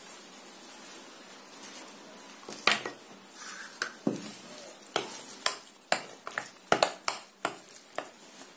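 Metal tablespoon stirring thick zucchini fritter batter in a glass bowl, the spoon clinking sharply and irregularly against the glass from about three seconds in, with quiet scraping before.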